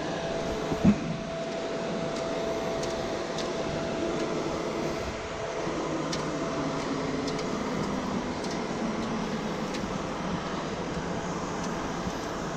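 Fire apparatus engine and aerial hydraulics running steadily beneath a climber on a steel aerial ladder, with a few faint tones that slowly drift lower. A thump about a second in and light scattered clicks come from boots and hands on the metal rungs.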